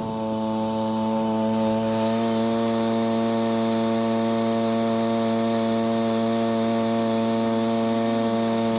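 Gas engine of a stand-on lawn aerator running at a steady speed, a constant even hum.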